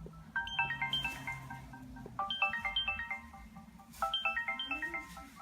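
Samsung Galaxy Y phone playing a ringtone through its speaker: a short run of quick, bright notes repeated three times, about every two seconds.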